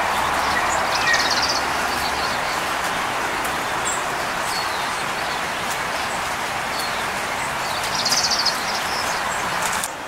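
Small songbirds chirping, with two short, fast, high trills, one about a second in and one near the end, over a steady background hiss.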